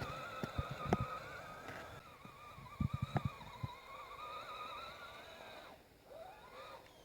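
Electric motor and geared drivetrain of an RC 6x6 scale truck whining as it drives over rough ground, the pitch wavering with throttle and load. It drops out near the end and then spins back up in a rising whine, with a few short knocks of the chassis or wheels on terrain in between.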